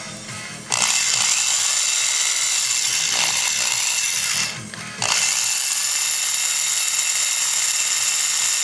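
Small cordless rotary tool spinning a 0.050-inch drill bit at high speed, drilling out the rivet of a die-cast toy car. A steady high-pitched whine starts about a second in, stops briefly near the middle, then runs again.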